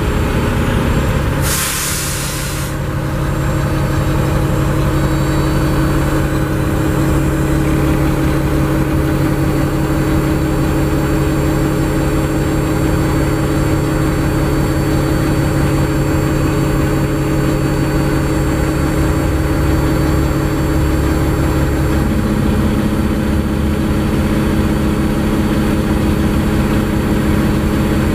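Mack MP7 diesel engine idling steadily in a side-loader garbage truck, heard from inside the cab. About two seconds in there is a sharp burst of air hiss from the truck's air system, lasting about a second, and late on a second steady low hum joins the engine note.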